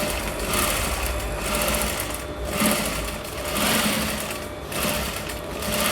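Sewing machine stitching in short spurts, speeding up and easing off several times, as a seam is run along the back of a blouse neckline.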